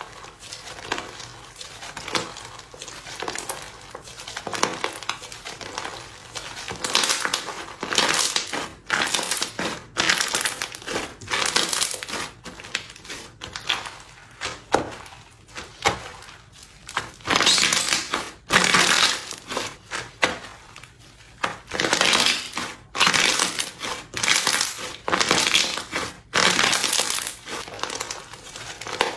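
Crispy slime being pressed and squeezed, crackling and crunching in bursts one to two seconds long with short pauses between.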